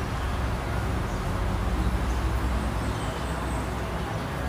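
Steady outdoor background rumble, low and even, with no distinct event standing out.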